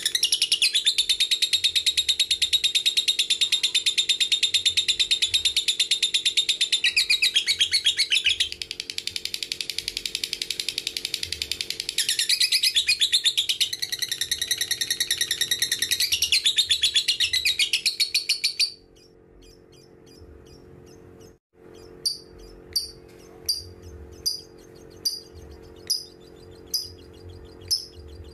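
Lovebird 'ngekek': a long, rapid, unbroken high-pitched chattering trill that shifts in tone twice and stops after about 18 seconds. After a short pause, single sharp chirps repeat evenly, about one every three-quarters of a second.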